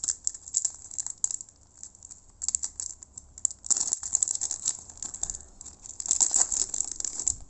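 Foil wrapper of an NBA Hoops trading card pack crinkling and crackling as it is peeled and torn open by hand. The crinkling comes in uneven spells and is busiest a little before halfway and near the end.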